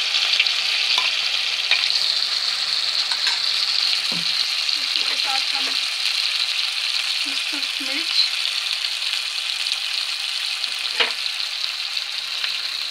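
Ground onion, tomato and cashew masala paste sizzling steadily in hot oil in a kadhai, with a couple of sharp knocks as it is stirred.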